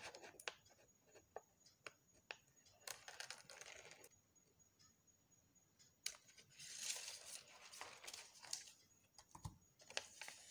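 Scissors snipping through a thin paper pattern, with quiet clicks of the blades and paper rustling as the sheet is turned and handled, louder for a couple of stretches in the middle.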